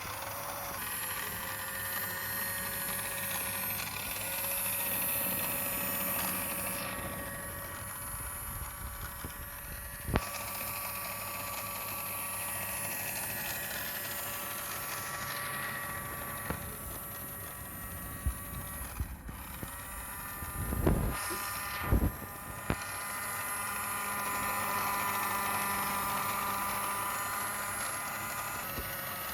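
Toy remote-control car's small electric motor and gears whining as it drives, the pitch shifting as it speeds up and slows down. There are a few sharp knocks, most of them between about 18 and 23 seconds in.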